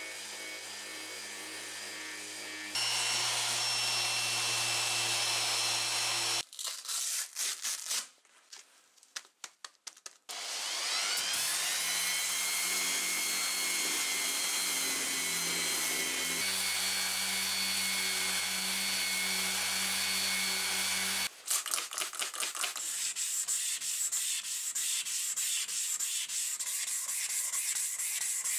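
Villager electric random orbit sander running on the steel hammer head, a steady motor whine that drops out for a few seconds and spins up again with a rising whine about ten seconds in. From about three-quarters through, rapid back-and-forth rubbing strokes of a hand sanding block wet-sanding the steel with fine 1000–2000 grit paper.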